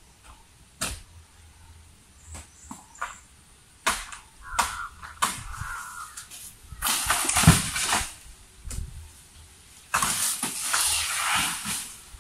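Sharp chopping knocks from a coconut palm being cut down by hand up in its crown, three coming about two-thirds of a second apart, then two longer rustling crashes of palm material, the first with a low thud and the second lasting about two seconds.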